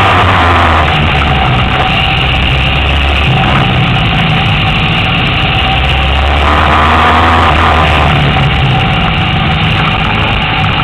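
Honda CBR1000RR inline-four engine running at low revs while rolling slowly, its pitch stepping up and down a few times with small throttle changes.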